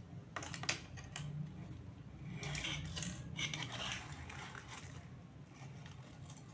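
Small hard plastic toys and packaging being handled: a few sharp clicks and knocks near the start, then a couple of seconds of scraping and rustling.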